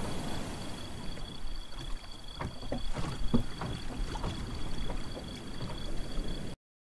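Water lapping against a moored boat and dock, with a few short knocks and splashes in the middle, over a faint steady high whine. It cuts off suddenly near the end.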